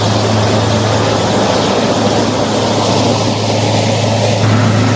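Heavy diesel engine of a Wirtgen tracked road-milling machine running loud and steady, with a constant deep hum under a dense mechanical noise.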